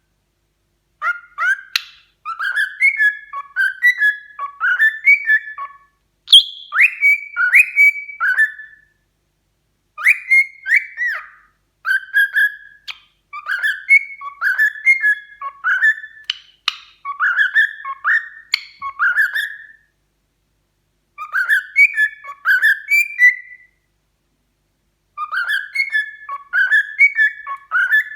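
Pet cockatiel whistling a learned tune in phrases of several quick whistled notes, with short pauses between phrases and a longer break about two-thirds of the way through.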